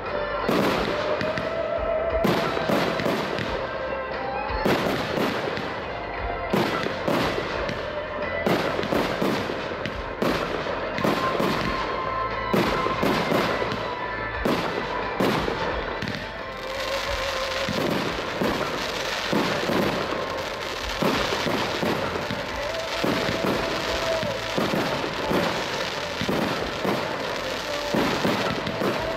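Aerial fireworks display: shells bursting in quick succession, several reports a second, which thicken into a denser, more continuous crackle in the second half.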